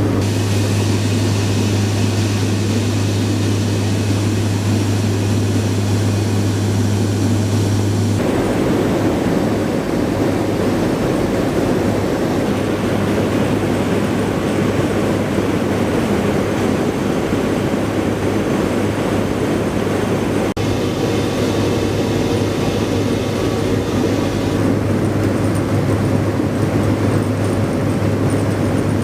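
Aircraft engines running steadily: a loud, even noise over a strong low hum, changing abruptly about eight and twenty seconds in.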